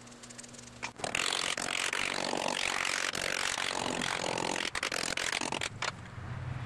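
A metal hand tool scraping and cutting through packed Petrobond molding sand in a mold. It is a rough, continuous scraping that starts about a second in, stops briefly a few times, and eases off near the end.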